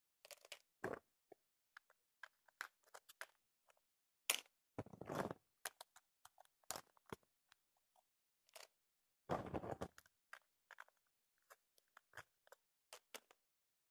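Faint scattered clicks, taps and rustles of small plastic toy figurines being handled and set down on a wooden floor, with two longer scraping rustles about five seconds in and again near ten seconds.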